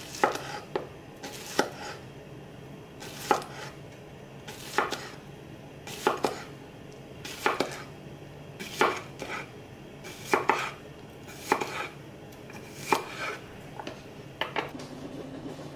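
Chinese cleaver slicing a cucumber into rounds on a wooden cutting board. Each cut is a crisp crunch and a knock of the blade on the board, one about every second and a half.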